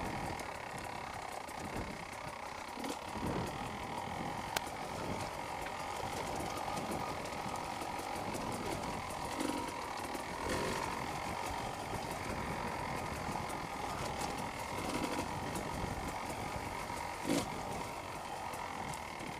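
Beta 300 RR two-stroke enduro motorcycle engine running steadily as the bike rides a rough, stony dirt lane, with a few sharp knocks from the ground, one about a second before the middle and one near the end.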